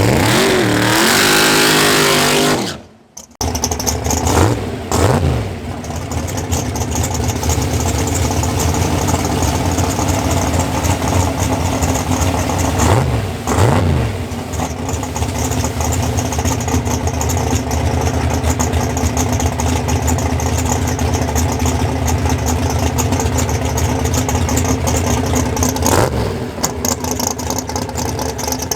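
Big-block Chevy V8 race engine revving at the start, then idling steadily, with short throttle blips that rise and fall a few times.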